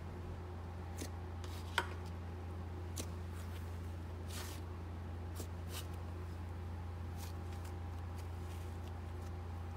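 Thick cloud slime being squeezed and stretched by hand, giving a handful of faint crackles and sticky clicks spaced irregularly over a steady low hum.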